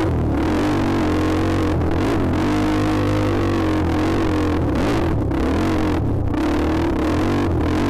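Dirt bike engine running under throttle, its pitch wavering up and down as the revs change, with the sound dipping briefly several times.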